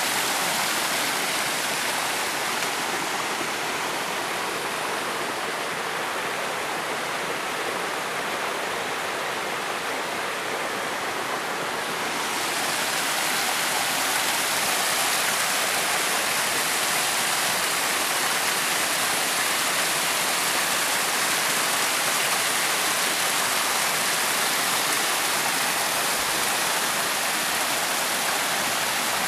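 Waterfall: water rushing steadily over rock in a constant hiss. About halfway through it turns brighter and a little louder.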